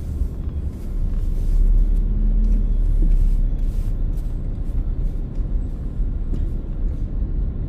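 Car driving slowly: a steady low rumble of engine and tyre noise, with a few faint light knocks.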